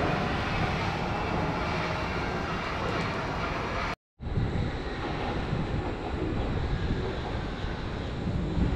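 Wuppertal Schwebebahn suspended monorail train running along its overhead track: a steady noise, broken by a sudden cut about four seconds in and starting again straight after.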